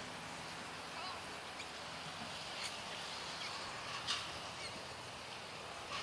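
Steady open-air background hiss with a few faint, short calls, one a little louder about four seconds in.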